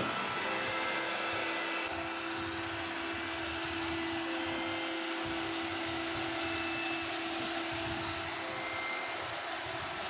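A 1300-watt Eureka Forbes Euroclean Bullet vacuum cleaner running in blower mode: a steady motor whine over the rush of air from its wand as it blows dust across a concrete floor.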